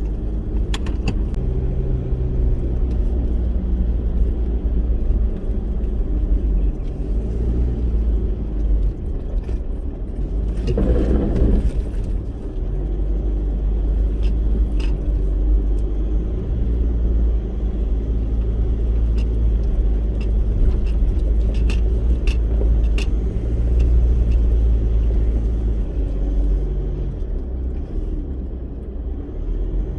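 A 4x4 vehicle driving off-road: steady engine and road rumble with scattered rattles and knocks, and a louder surge about eleven seconds in.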